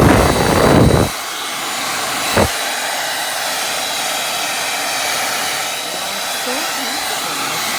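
Hair dryer running on its hot setting, a steady blowing rush with a faint whine. A loud low rumble fills the first second, and there is a short thump about two and a half seconds in.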